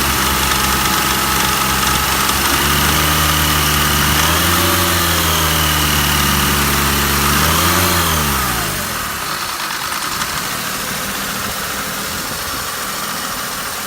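Mercedes-Benz W124's petrol engine idling roughly, its engine speed lifting and dropping back twice; the rough idle was traced to a faulty engine wiring harness. About two-thirds of the way through, the engine note drops away, leaving a steady hiss.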